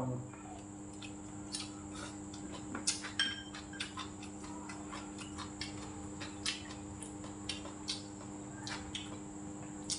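Eating sounds: irregular small clicks and taps of chopsticks against ceramic bowls, mixed with chewing, over a steady faint hum.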